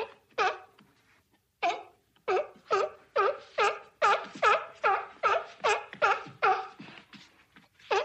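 A seal barking over and over in short, pitched barks: a couple near the start, then a quick, even run of about three barks a second from about two seconds in until near the end.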